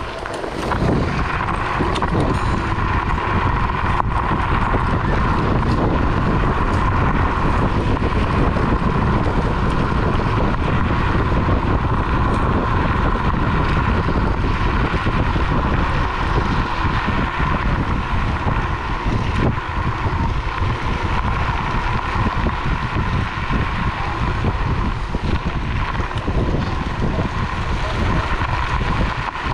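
Electric scooter riding fast on a dirt towpath: wind buffeting the microphone and tyre rumble, with a steady high whine from the motor.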